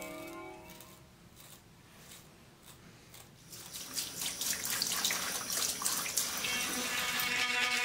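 A cartridge razor scrapes stubble in a few soft strokes. Then, from about three and a half seconds in, a tap runs into a sink and the steady splashing grows louder.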